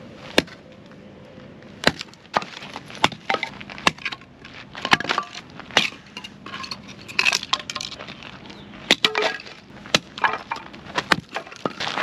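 Axe splitting firewood: about ten sharp chops with cracking wood, roughly a second apart, and split pieces clattering down between strikes.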